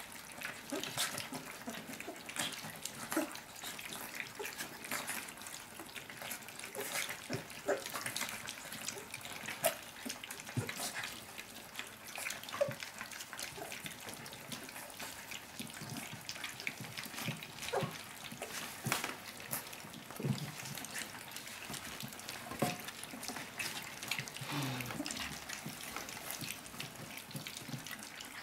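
A litter of 23-day-old puppies eating their first soft food together from a round stainless steel feeding dish: a busy, irregular run of wet lapping, smacking and slurping clicks.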